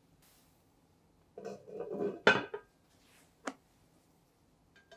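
A spatula scraping and knocking against a frying pan as it is drawn out from under a souffle pancake, with one sharp clink about two seconds in and a lighter click a second later.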